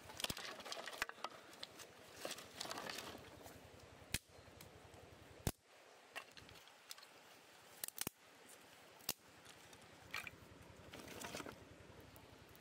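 Dry sticks being handled and laid over a stone fire pit: rustling, with about five sharp wooden clicks and knocks in the middle of the stretch.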